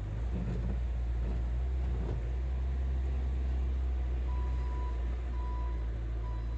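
Skid steer engine running steadily with a deep drone, with a few faint knocks in the first two seconds. From about two-thirds of the way in, a high backup alarm beeps on and off.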